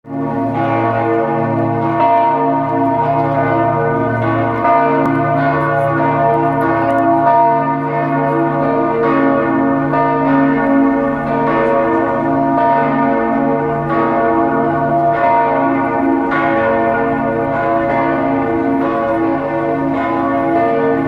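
Several church bells swinging and ringing together in a full peal. Their strokes come about once a second and overlap into a continuous ringing wash.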